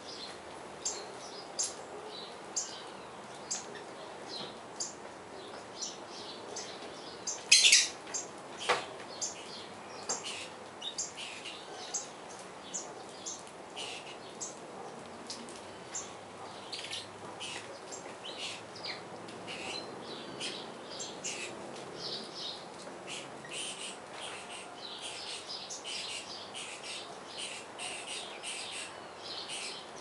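A flock of saffron finches feeding on the ground, giving many short, high chirps throughout, with one louder, longer call about seven and a half seconds in.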